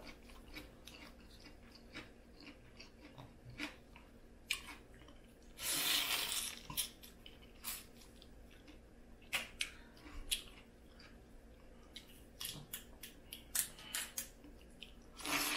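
Crawfish being eaten: scattered cracks and clicks of the shells being broken and peeled, with chewing. There is a longer burst of noise about six seconds in, and another near the end.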